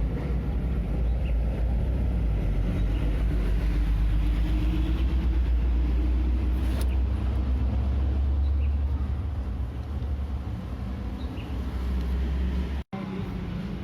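A steady, low engine rumble that eases off somewhat about ten seconds in, with a split-second gap where the sound cuts out completely near the end.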